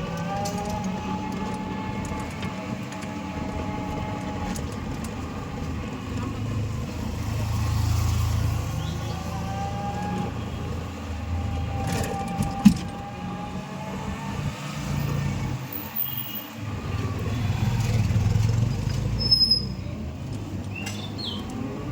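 Road vehicle running, a steady low hum with a faint whine that slowly rises and falls. A single sharp click about halfway through.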